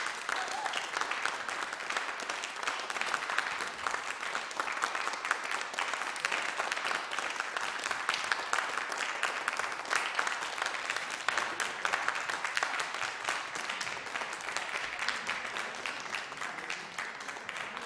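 Audience applauding: many hands clapping steadily, easing a little near the end.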